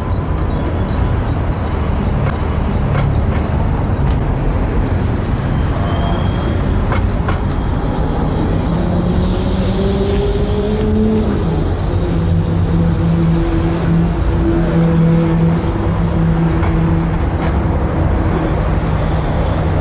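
City street traffic noise: a steady low rumble of passing vehicles. A vehicle engine's drone rises in pitch from about eight seconds in, then holds steady through the second half.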